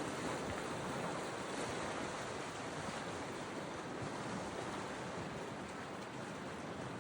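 Steady rush of sea surf breaking on the shore, with a little wind.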